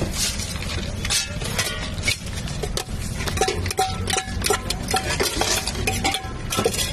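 A metal spoon stirring puffed rice for jhalmuri in a steel tin: rapid scrapes and clinks of metal on metal, several ringing briefly, over a steady low rumble.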